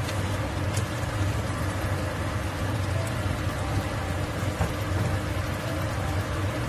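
Tomato sauce simmering in a frying pan, bubbling and lightly crackling, over a steady low hum.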